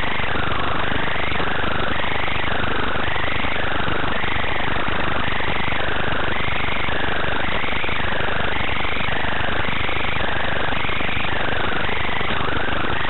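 Steady loud static hiss on the audio channel of an analog FPV video feed, with a tone that warbles up and down about once a second.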